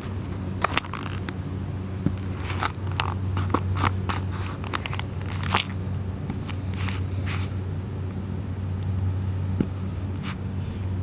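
Cardboard pizza box crushed and ground under the soles of leather work boots on concrete: irregular crackles and crunches, thickest in the first seven seconds and sparser near the end. A steady low hum runs underneath.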